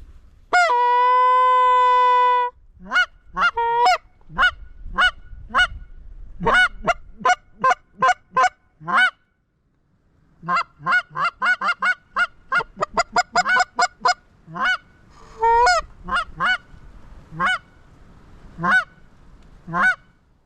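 Goose honking: one long steady note lasting about two seconds, then many short, sharp honks and clucks in quick runs, with a brief pause in the middle.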